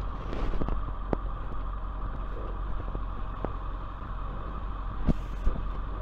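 Tow truck's engine running at low speed while the truck backs and turns, heard from inside the cab, with a few sharp clicks over the steady rumble.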